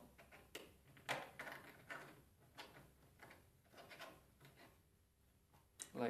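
Faint, irregular clicks and light taps of small 3D-printed plastic parts being handled and pressed together as a dowel is fitted into a slot.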